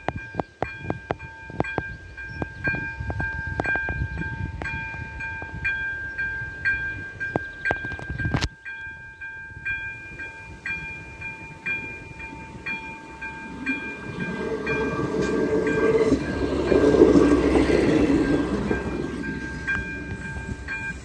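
Level-crossing warning bell ringing in a steady, rapid electronic chime while a train approaches and passes over the crossing, its rumble building to its loudest about seventeen seconds in and then fading. A sharp click about eight seconds in briefly interrupts the chime.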